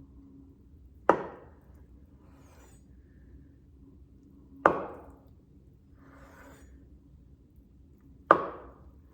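Chef's knife chopping down through a block of firm tofu onto a cutting board: three single sharp knocks, about three and a half seconds apart.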